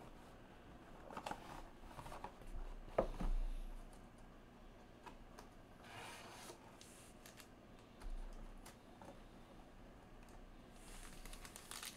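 Faint rustling and light clicks of a cardboard trading-card hobby box and its foil-wrapped packs being handled, with a couple of soft bumps.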